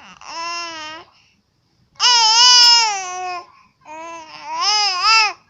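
A baby vocalizing in three long, high-pitched, sing-song sounds with wavering pitch, the middle one the loudest.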